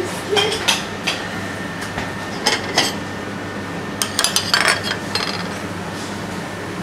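Ceramic plates being handled and set down on a stainless-steel kitchen counter: a few short clinks and knocks, with a quick cluster of ringing clinks about four seconds in, over a steady background hum.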